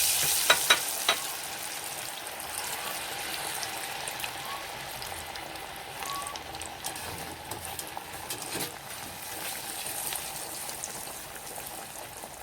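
Breaded potato mojos sizzling in hot oil, just dropped in: a loud, frothy sizzle that eases over the first couple of seconds into a steady frying hiss. A few sharp ticks come about a second in.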